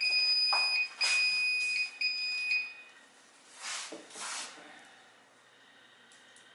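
Building fire alarm sounding a high-pitched steady tone, broken by short gaps about once a second. It cuts off about three seconds in as the alarm is reset. Two brief noisy sounds follow, then faint room tone.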